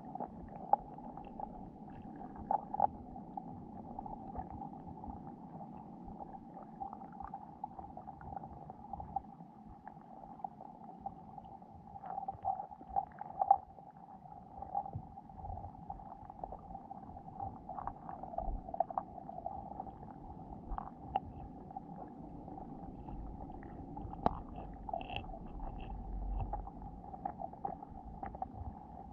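Underwater sound picked up by a GoPro in its waterproof housing on a sandy lake bed: a steady muffled hum with many small scattered clicks and taps. A low rumble swells about three-quarters of the way through.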